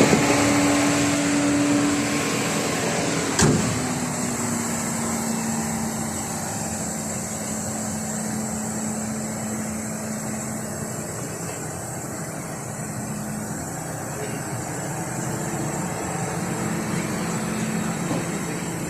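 Chevrolet Cruze engine idling steadily, now running after a battery replacement cured its no-crank fault; the idle eases down a little in the first few seconds, then holds. A single sharp knock comes about three and a half seconds in.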